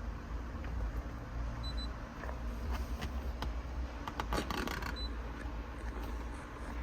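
Scattered clicks and light rattling of hands handling equipment, with a dense run of clicks about four seconds in, and a few very short high electronic beeps: two quick ones early and one near the middle. A steady low rumble sits underneath.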